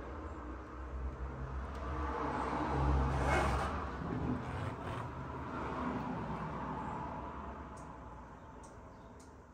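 Low rumble of a passing road vehicle, swelling about three seconds in and then slowly fading.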